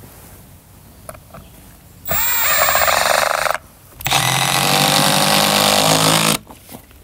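Milwaukee cordless impact driver driving screws into timber battens: two runs of rapid hammering, the first starting about two seconds in with a rising whine as the motor spins up and lasting about a second and a half, the second longer and stopping near the end.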